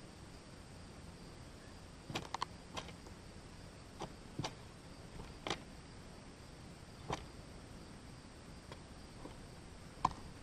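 Mourning dove pecking sunflower seeds in a feeder tray close to the microphone: about ten irregular sharp taps and clicks, a few in quick succession, the loudest near the end, over a faint steady outdoor hiss.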